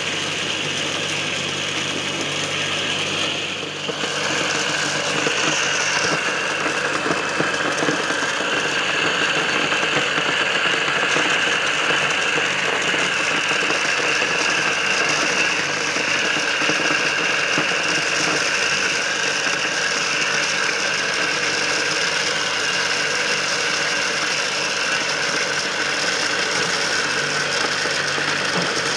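A homemade corn sheller, driven through a V-belt by a converted water-pump electric motor, runs steadily while ears of corn are fed in, with a dense rattle of kernels being stripped off the cobs. The sound dips briefly about four seconds in, then runs a little louder.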